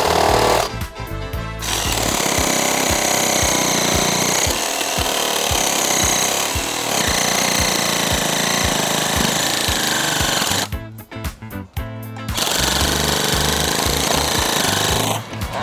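Ryobi 18V cordless reciprocating saws sawing into a wooden block, a fast rhythmic stroking with a motor whine. The newer RRS18-0 cuts for under a second. After a short pause the older RRS1801M saws for about nine seconds, stops for a second or so, then cuts again for about three seconds, jumping a lot in the cut.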